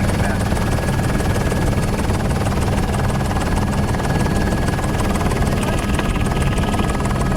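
News helicopter's engine and rotor running in flight as a steady, unbroken drone, heard from on board.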